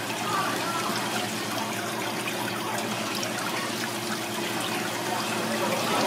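Water trickling steadily in a live seafood tank, over a steady low hum.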